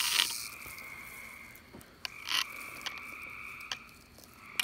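A timber rattlesnake's rattle buzzing and then stopping abruptly about half a second in. Behind it, a steady high night chorus carries on, with a few faint clicks.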